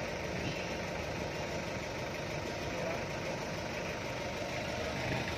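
Toyota forklift engine running steadily at idle.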